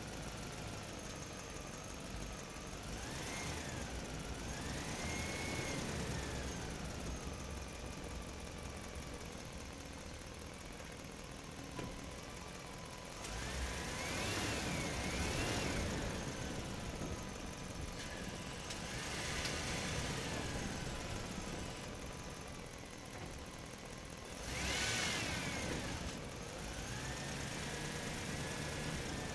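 Engine running steadily, with rising-and-falling whines every few seconds like heavy machinery working its hydraulics.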